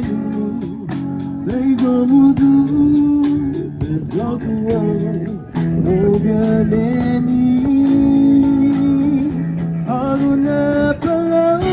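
Music: singing over a strummed guitar accompaniment.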